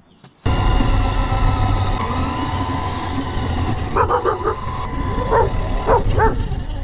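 RC car's motor and gears whining steadily over tyre rumble on asphalt, close to the onboard camera, starting suddenly about half a second in. From about four seconds in, a dog barks several times.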